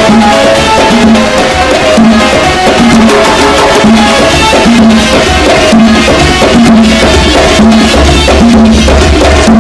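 Background music with a steady beat, drums and percussion over a repeating low note.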